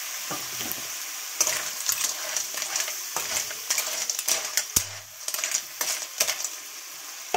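Clams in their shells sizzling as they stir-fry in a wok, with a steady hiss. From about a second and a half in they are stirred, the shells clattering and scraping against the pan in irregular strokes, with one sharp click near the middle.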